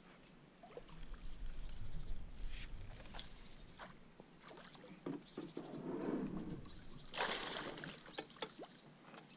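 Water sloshing against a small boat's hull, with scattered knocks and clicks and a short burst of rushing noise about seven seconds in.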